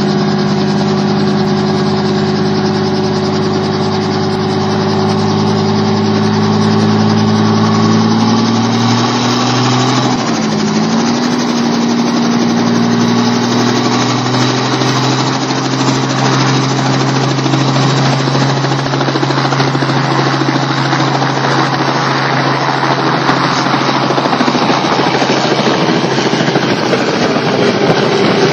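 Robinson R44 helicopter running on the pad, its piston engine and two-bladed rotor spooling up to take-off power. The engine note shifts about ten seconds in, then the rotor noise grows steadily louder as it lifts off near the end.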